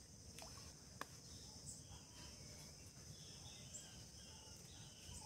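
Faint, steady high-pitched insect chorus, with a light click about a second in.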